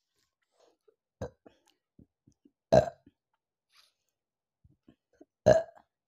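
A woman burping from the gas of a carbonated apple soft drink: a short soft burp about a second in, then two loud burps a few seconds apart.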